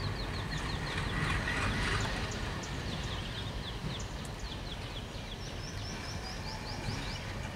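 A bird calling in several runs of quick, short, falling chirps, over the low rumble of a diesel locomotive's engine as it moves away.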